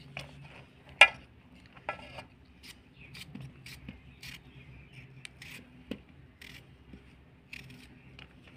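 Kitchen knife cutting chunks off a raw potato held in the hand, a string of short crisp cuts at uneven intervals as the pieces drop into a metal bowl, with one louder click about a second in.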